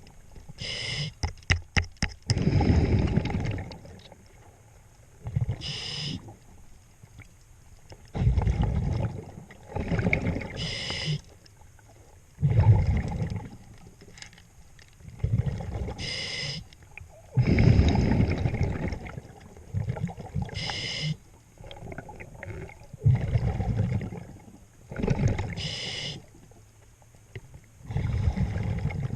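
A scuba diver breathing through a regulator underwater. A short hissing inhale comes about every five seconds, and between them are low rumbling bursts of exhaled bubbles. A quick run of sharp clicks or taps comes about a second in.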